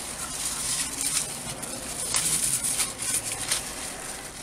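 Crinkling and tearing of thin plastic as wrapped plastic cutlery packets are opened by hand and with the teeth, in short irregular bursts over a steady background hiss.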